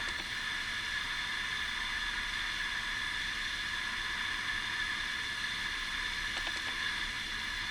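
A steady high hiss with no change in level, with a few faint clicks about six and a half seconds in.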